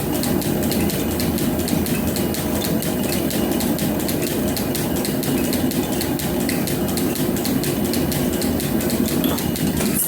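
Metal planer running, with a swan-necked roughing tool taking a cut along the flame-cut side of a steel bar. A steady machine drone with a fast, even ticking.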